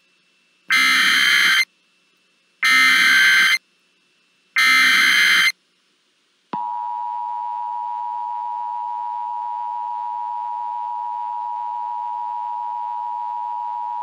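Emergency Alert System alert tones announcing a tornado warning: three one-second bursts of digital SAME header data about two seconds apart, then from about halfway through a long, steady attention tone.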